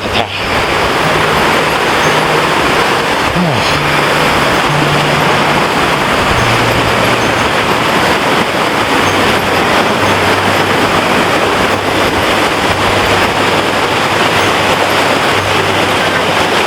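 Loud, steady rush of a creek or waterfall close by, an even hiss with no breaks.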